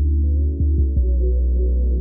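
Ambient background music: low, steady droning tones with a few short pitch slides. The pouring water seen in the picture is not heard.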